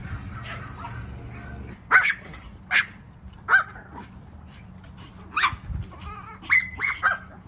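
Small Pomeranian-type dogs yapping: about seven short, high-pitched barks starting about two seconds in, with a quick run of three near the end.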